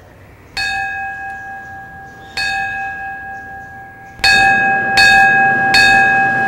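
A single metal bell struck five times, each strike ringing on: two strikes about two seconds apart, then three more quickly, under a second apart.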